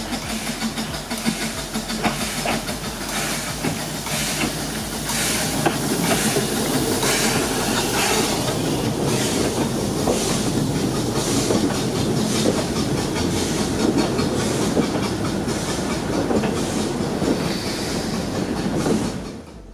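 Narrow-gauge steam train running, a steady rumble with a regular beat about once a second; it fades away just before the end.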